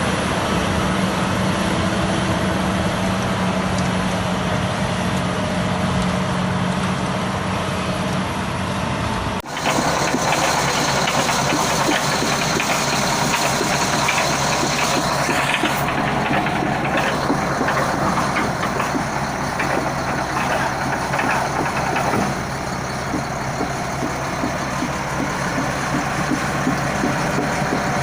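Shantui SD20-5 bulldozer running, its diesel engine steady. About nine seconds in, the sound cuts to a busier mechanical clatter with fast ticking and knocking from a machine that has an abnormal noise at the final drive (steering and brake system).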